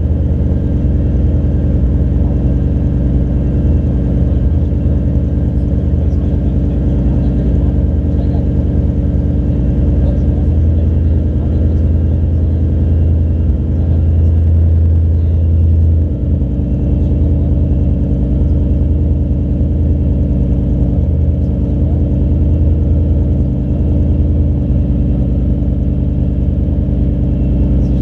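BMW E39 M5's 4.9-litre V8 idling steadily through a custom exhaust, heard from behind the quad tailpipes in an underground concrete car park.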